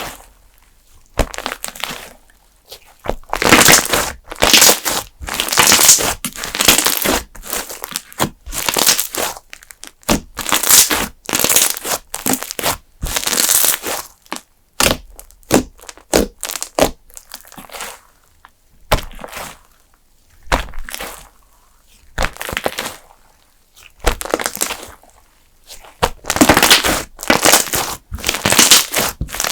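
Hands squeezing and pressing a thick custard-base slime: a run of short crackling squishes, each under a second, with a few brief pauses.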